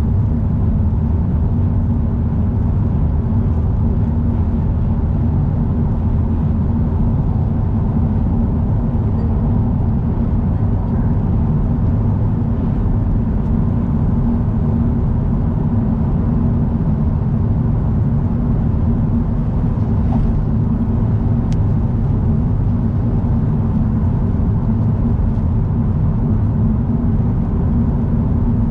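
Car driving at expressway speed: a steady, unbroken low rumble of tyre, road and engine noise.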